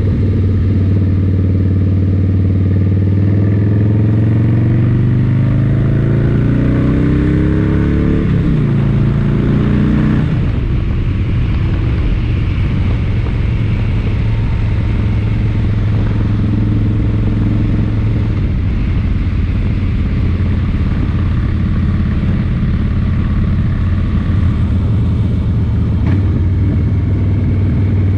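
An engine running with a steady low hum. Over it, a pitch climbs for several seconds and then drops away quickly about eight to ten seconds in.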